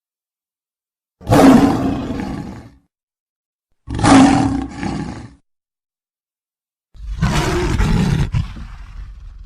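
Three separate roars from a dragon-like cartoon villain, voiced by an actor, with dead silence between them. The first two last about a second and a half each, and the last runs about three seconds and trails off.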